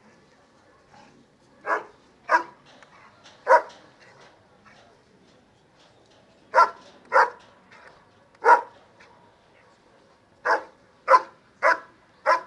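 German Shepherd barking at a helper in a hide: the bark-and-hold of Schutzhund protection work. About ten loud single barks, in uneven groups of two or three with short pauses between.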